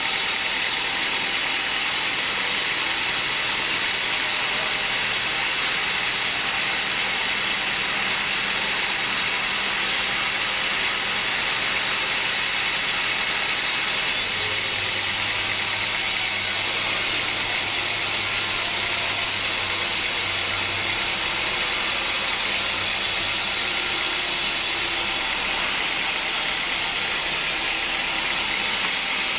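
Band sawmill running, its blade cutting lengthwise through a teak log: a steady hissing whir. A low hum comes in about halfway through and fades a few seconds later.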